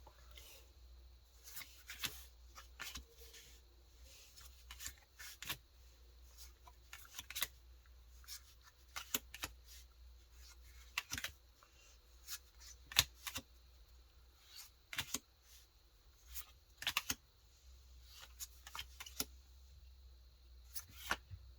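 Dragon Ball Super card game booster packs being torn open and the cards inside handled and flicked through: scattered crinkles, snaps and card clicks over a low steady hum.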